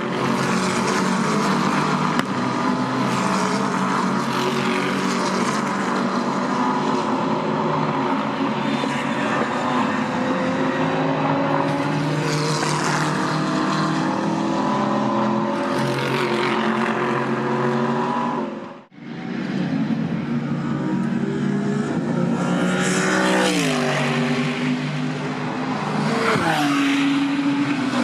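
GT race car engines running at high revs, the note slowly climbing as they accelerate. About 19 s in the sound cuts off suddenly and a second engine note begins; this one drops sharply in pitch a couple of times, in steps.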